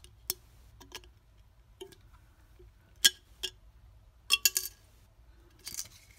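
Pull tab of an aluminium drink can being worked back and forth by hand to break it off: a series of sharp metallic clicks, the loudest about three seconds in and a quick cluster of them at about four and a half seconds. A short rustle of handling near the end.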